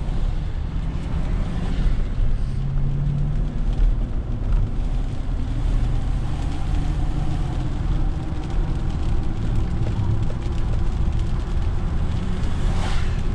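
Inside a car driving on a wet road in rain: a steady low rumble of tyres and engine. Near the end, the hiss of an oncoming car's tyres on the wet pavement swells and fades as it passes.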